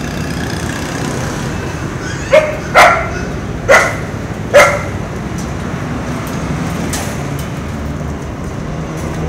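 Dog barking: four short, sharp barks between about two and five seconds in, over a steady low background noise.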